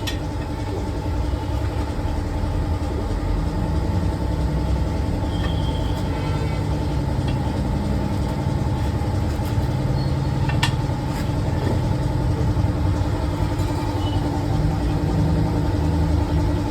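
Steady vehicle engine and traffic noise with a continuous low rumble, and a single sharp click about ten seconds in.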